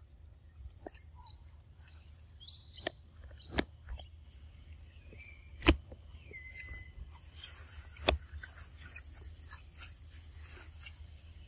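Outdoor ambience of birds chirping and insects calling steadily, broken by about five sharp clicks. The loudest click comes about halfway through, and another comes about two seconds later.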